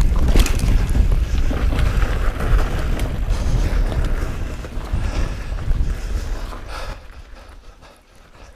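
Wind buffeting the action camera's microphone over the rumble and rattle of mountain-bike tyres rolling fast on a forest dirt trail, with a sharp knock just after the start as the bike lands off a wooden drop. The noise drops off markedly about seven seconds in.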